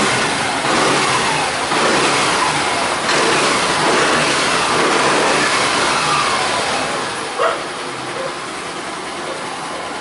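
Suzuki Access 125 scooter's single-cylinder four-stroke engine, freshly reassembled, running and revved up and down, then dropping to a quieter idle about seven seconds in, with one short blip of the throttle soon after.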